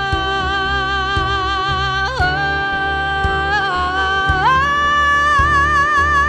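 Woman belting one long sustained note over backing music. A little past halfway she climbs to a higher held note with a wide vibrato.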